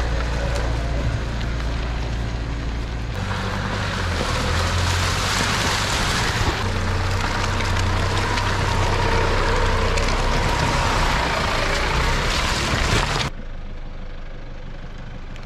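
A 4x4 pickup driving on a rough mountain track: steady engine hum under tyre and road noise. About thirteen seconds in, the sound drops to a quieter, steadier background.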